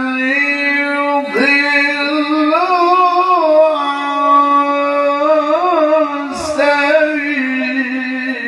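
A man reciting the Quran in the melodic tilawah style into a microphone, holding long notes and ornamenting them with wavering turns. He takes a short breath between phrases about six and a half seconds in.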